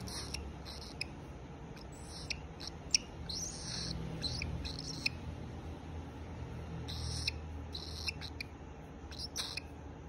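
Cockatiel chirping: about a dozen short, high calls at irregular intervals, with a slightly longer one between three and four seconds in.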